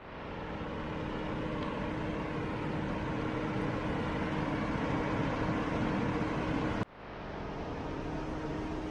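Idling engines of queued cars and a coach bus: a steady hum with one constant droning tone. It breaks off for a moment about seven seconds in and then carries on.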